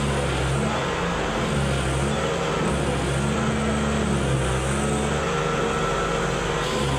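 A heavy land-clearing machine's engine running steadily under a dense, noisy wash, its low note shifting slightly up and down as the load changes.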